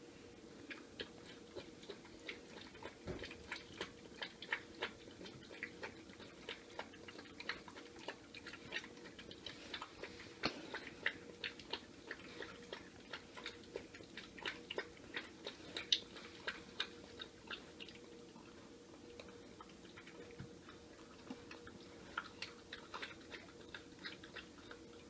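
A puppy crunching dry kibble from a plastic food bowl: an irregular run of small crisp crunches, two or three a second, over a faint steady hum.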